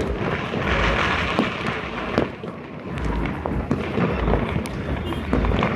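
Fireworks and firecrackers going off in many places at once: a dense, irregular stream of sharp bangs and pops with low booms underneath.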